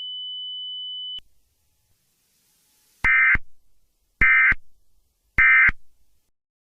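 Emergency Alert System end-of-message signal. A steady high tone cuts off about a second in. Then come three short, identical bursts of buzzy data tones, the SAME 'NNNN' end-of-message code, about a second apart, marking the close of the alert.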